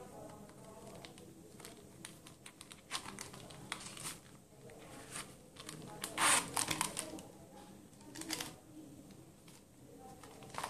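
A leather phone purse being handled: scattered small clicks and rubbing of leather and zipper, with a louder rustle about six seconds in as the case is worked open.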